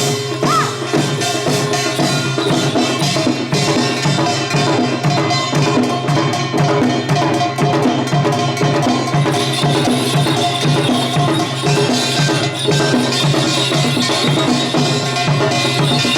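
Samul nori percussion ensemble playing a fast, dense rhythm: kkwaenggwari small gong, janggu hourglass drum, buk barrel drum and jing gong.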